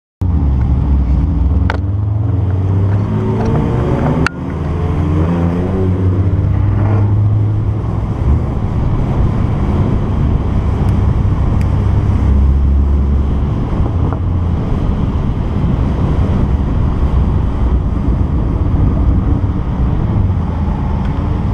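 BMW E36 M3's straight-six engine running on track, the revs rising and falling over the first several seconds, then holding a steadier drone.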